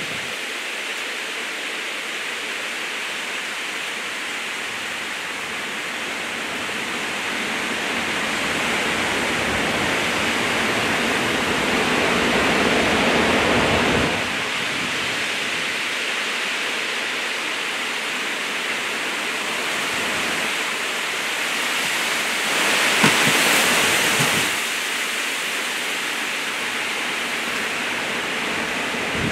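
Hurricane wind and driving rain rushing through trees as a steady loud hiss. It swells into a strong gust that ends abruptly about halfway through, then gusts up again about three quarters of the way through.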